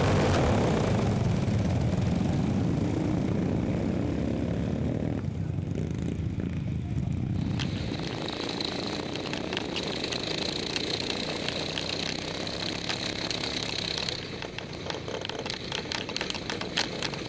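Racing lawn mower engines running, a continuous engine drone that shifts in level and character several times, with a high whine in the middle stretch.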